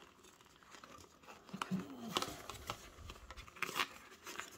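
Plastic utensil set and its retail packaging card being handled: crinkling and rustling with scattered light clicks and taps, the sharpest a little after two seconds in and near the end.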